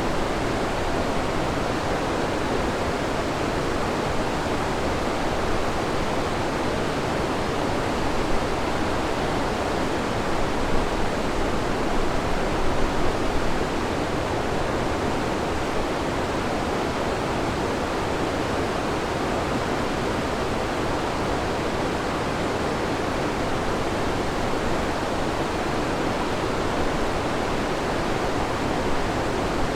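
Waterfall: a large volume of river water pouring over rock ledges, a steady rushing roar with a few slightly louder surges partway through.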